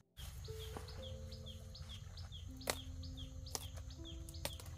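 A bird chirping over and over, short falling high notes about three a second, with a few sharp snaps as cauliflower stalks are cut.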